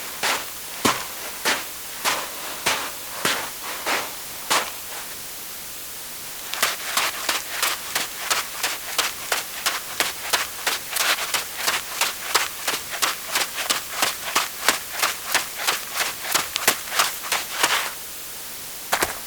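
Footsteps on a hard or gritty surface over a steady hiss: walking at an even pace for the first few seconds, a short pause, then quicker running steps, about three a second.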